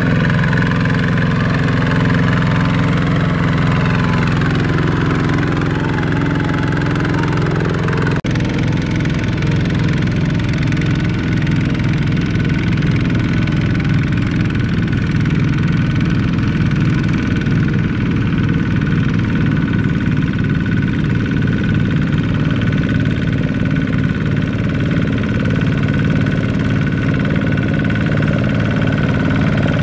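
Single-cylinder diesel engine of a two-wheel walking tractor running steadily under load, hauling a trailer of rice sacks through mud. The sound shifts abruptly about eight seconds in.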